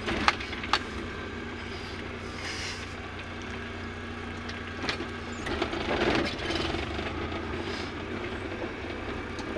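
Car engine running at low speed, heard from inside the cabin as a steady low hum, with a couple of sharp knocks or rattles near the start.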